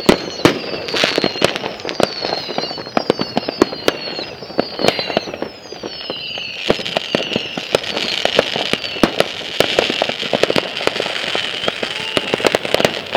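Consumer fireworks going off: a rapid, irregular stream of crackling pops, with a run of short falling whistles about twice a second in the first half, giving way about halfway through to a steadier high hissing whistle under continued pops.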